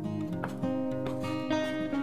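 Background music: acoustic guitar playing a gentle tune of plucked and strummed notes.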